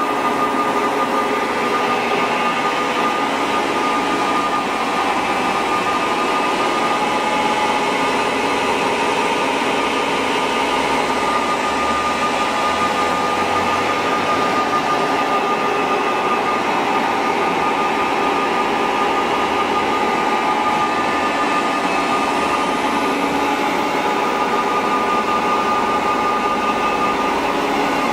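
Blanchard rotary surface grinder running under power: a steady machine hum with a constant high whine.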